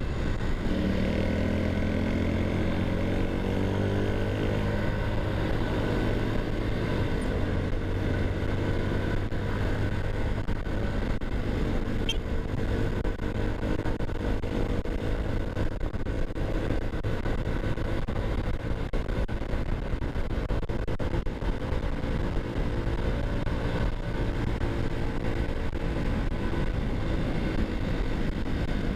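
All-stock Honda TMX 125's single-cylinder four-stroke engine pulling at road speed, its pitch rising over the first few seconds as the bike accelerates, then holding steady. Wind rushes over the microphone throughout.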